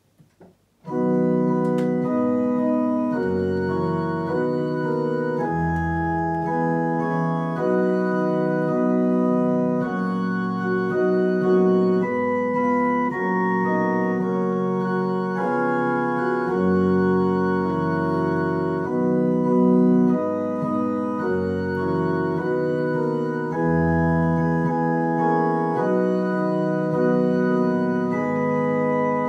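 Digital piano played on an organ voice: slow, sustained chords that hold steady without fading and change about once a second, starting about a second in.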